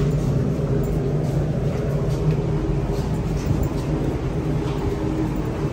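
Steady low mechanical drone with several held low tones, unbroken throughout.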